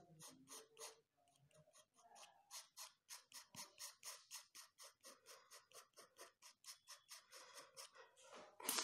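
Palette knife scraping paint across paper in quick repeated strokes, about four to five a second, with one louder scrape near the end.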